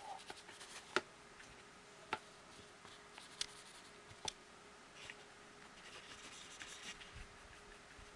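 A watercolour brush picking up and mixing paint on a metal palette. There are four or five faint sharp clicks as it knocks against the palette, then about five seconds in a soft scratchy brushing for a couple of seconds.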